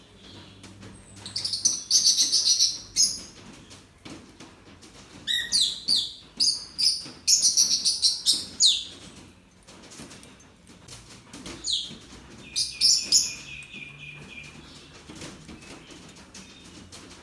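Small birds chirping in three bursts of rapid, high-pitched calls, the last ending in a briefly held whistle-like note, with quieter stretches between.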